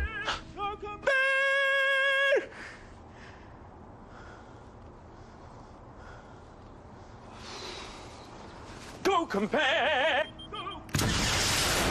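A man singing in operatic style: a few short notes, then one note held for over a second. After a quiet stretch comes another short sung phrase with wide vibrato, and near the end a loud explosion from a bazooka blast.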